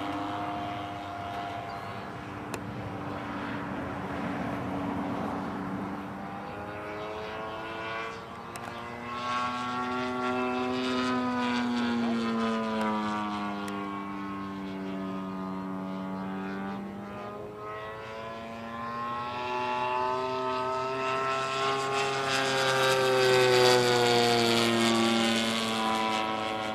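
Model Zero warbird's engine buzzing overhead in flight. Its pitch rises and falls several times as the plane passes and turns, and it is loudest near the end.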